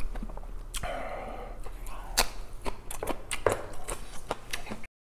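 Close-miked eating sounds: biting into and chewing a raw green chili pepper, a run of crisp crunches and wet mouth clicks. The sound cuts out abruptly near the end.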